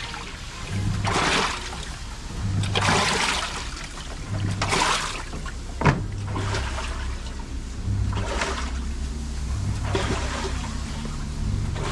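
Sharp automatic top-loading washing machine in its wash cycle: the pulsator turns one way and then the other, swishing the water in regular surges about every one and a half to two seconds, each with a brief low motor hum. A single sharp click comes about halfway through.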